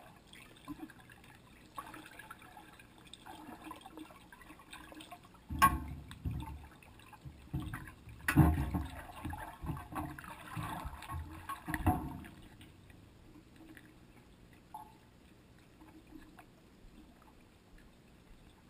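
Muffled splashing and gurgling of pool water heard through a camera held underwater while a swimmer moves overhead, with three louder surges of sloshing, the last about two-thirds of the way through.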